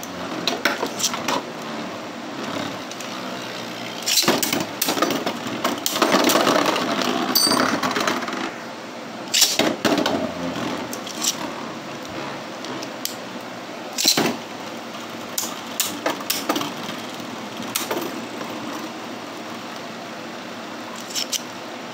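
Two Beyblade Burst spinning tops, Geist Fafnir and Brutal Luinor, spin in a plastic stadium with a steady rattling scrape of their tips and metal-and-plastic layers, broken by several sharp clacks as they strike each other or the stadium wall.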